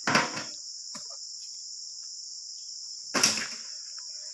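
Steady high-pitched drone of insects in an oil palm plantation. Over it come a short crash just after the start, a faint knock about a second in, and a louder crash about three seconds in, from the work of harvesting oil palm fruit with a long pole.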